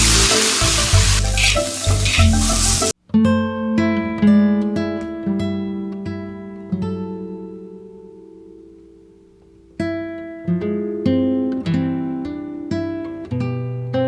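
Background music: a loud, dense track cuts off abruptly about three seconds in. Slow plucked string notes follow, each ringing out and fading. They die away to a lull and pick up again about ten seconds in.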